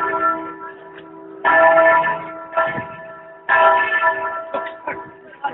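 Church bells ringing, a fresh stroke roughly every second, each ringing on and overlapping the last.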